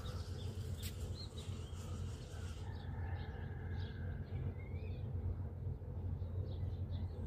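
Wild birds chirping and calling, with a few short gliding calls among the chirps, over a steady low hum.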